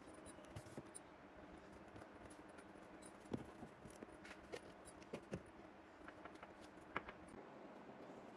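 Near silence with a few faint, scattered clicks and taps of spice jars being handled on a cabinet shelf, over a low room hum.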